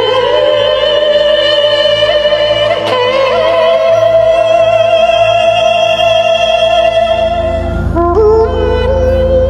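A singing voice holds long, vibrato-laden notes in an operatic style over sustained instrumental backing music, moving to a new note about three seconds in and again near the end.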